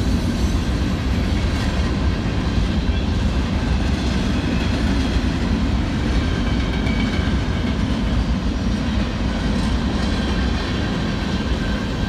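Freight cars of a Union Pacific manifest train rolling past on the rails: a steady low rumble.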